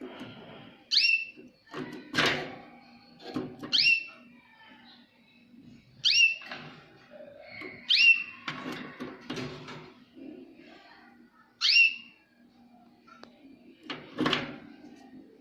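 Jaspe canary calling: five short, sharp chirps, each a quick downward sweep in pitch, spaced a few seconds apart. Rough, noisy knocks or rustles come in between.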